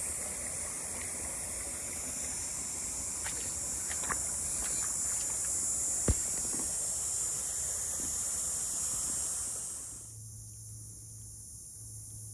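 Steady high-pitched insect buzzing that cuts off about ten seconds in, with a single sharp knock about six seconds in.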